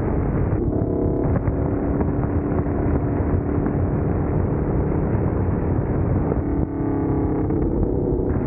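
Wind buffeting the microphone as a small open vehicle rides at speed along a paved road, under a steady hum from the vehicle.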